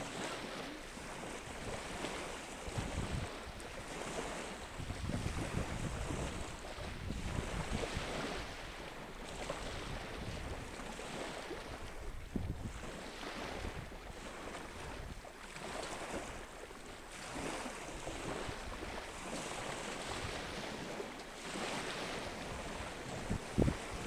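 Ocean surf washing in and out, with wind buffeting the microphone in gusts. A couple of short knocks near the end.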